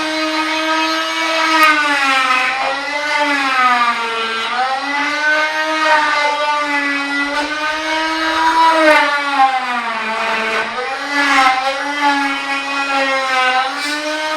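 Rockwell oscillating multi-tool cutting, a steady high motor whine whose pitch sags repeatedly as the blade is pressed into the cut and then recovers.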